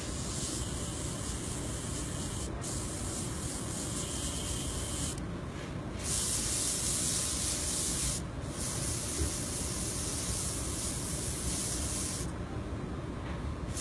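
Airbrush spraying paint: a steady high hiss of air coming in four long bursts, with short breaks as the trigger is let go, the last break near the end.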